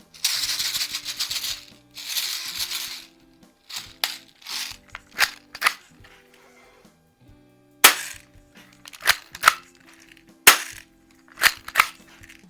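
Daisy 340 spring-air BB pistol being shaken twice, BBs rattling inside it, then a string of about ten sharp clicks and snaps as its action is worked while it fails to feed BBs properly. Background music plays throughout.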